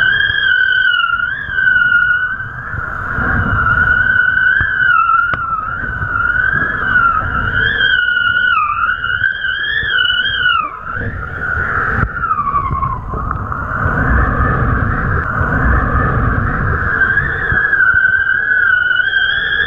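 Wind whistling past a kiteboarder's pole-mounted camera rig: a high whistle that wavers and slides in pitch, over low rumbling wind buffeting on the microphone. About eleven seconds in, the whistle bends down in pitch and fades for a couple of seconds, then returns.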